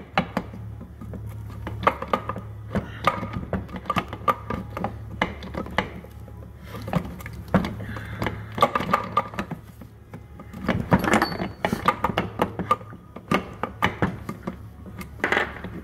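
Alfa Romeo 5-speed gearbox rear cover being wiggled loose by hand: irregular clunks, clicks and metal knocks as the cast housing shifts against the case and shafts. A steady low hum runs underneath.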